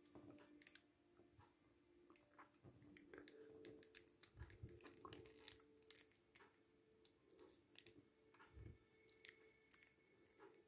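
Near silence with faint, scattered clicks and taps of a plastic action figure and its small clip-on rocket part being handled, most of them in the middle few seconds, over a faint steady hum.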